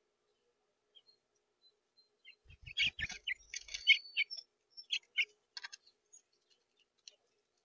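House finches chirping in a quick run of short, high calls for about three seconds, with a few soft low thumps near the start of it as a finch lands on the feeder.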